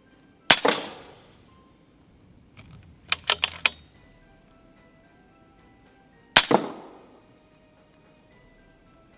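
Two shots from a .177 PCP air rifle, about six seconds apart, each a sharp crack with a short ringing tail, with a quick run of four clicks midway between them.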